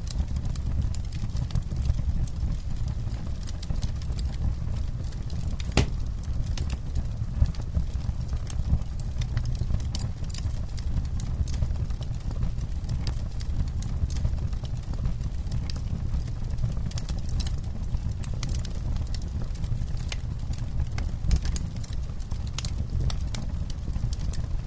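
Campfire burning, with frequent irregular crackles and pops of wood over a steady low rumble of the flames; one sharper pop stands out about six seconds in.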